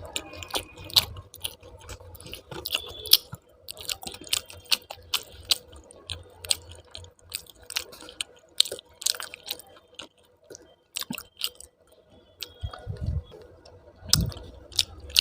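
Close-miked chewing of food with wet mouth clicks and smacks, several a second at an uneven pace, and two dull thumps near the end.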